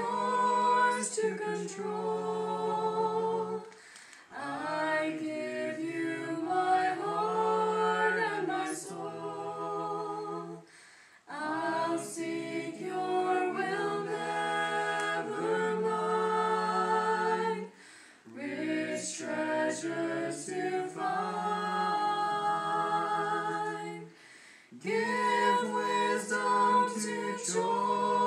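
A small mixed group of young men and women singing a hymn a cappella in parts, holding long notes in phrases with short breaks for breath about every six or seven seconds.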